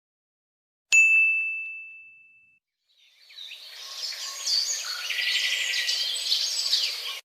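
A single bright ding about a second in, ringing one clear tone that fades over about a second and a half. Then birds chirping and singing, fading in about three seconds in and cutting off suddenly.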